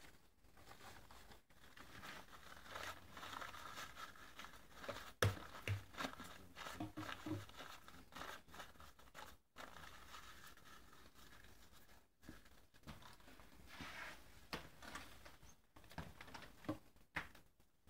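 Thin tissue paper crinkling and rustling as it is handled and wrapped by hand, with a few sharp knocks. The loudest knock comes about five seconds in.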